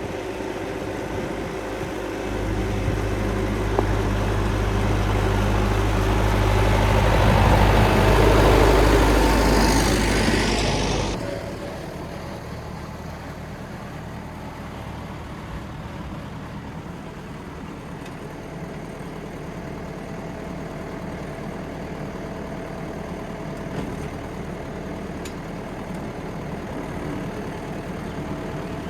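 David Brown tractor engine running freshly started and warming up. It runs loud and busy for the first ten seconds or so, then drops off suddenly about eleven seconds in to a steady, quieter idle.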